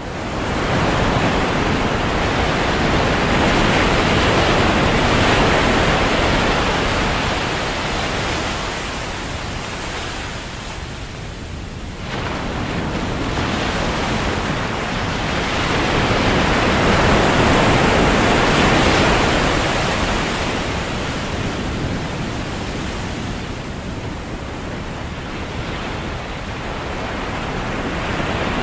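Ocean surf washing up on a sandy beach: a steady rush of water that swells and ebbs over several seconds, jumping abruptly back to full strength about twelve seconds in.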